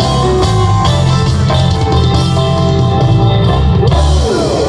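Live rock band playing loudly through a stage PA, with heavy bass and sustained instrument notes. The band stops about four seconds in, and the crowd starts whooping and whistling as the song ends.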